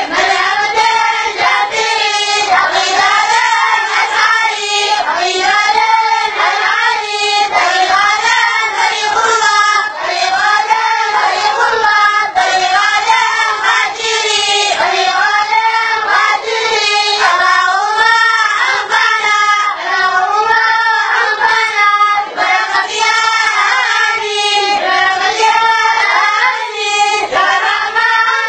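A group of boys singing together in unison: one melody carried without a break, rising and falling phrase by phrase.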